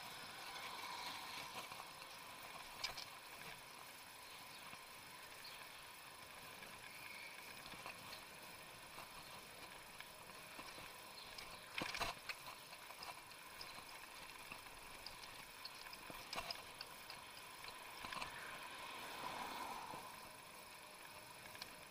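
Electric bicycle ridden along a street at about 26 km/h: a faint steady hiss with a thin steady whine, scattered light rattles and clicks, and a sharper knock about halfway through.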